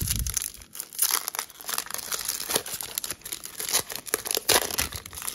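Clear plastic wrapper of a Donruss basketball card fat pack being torn open and crinkled by hand: a steady run of irregular crackles.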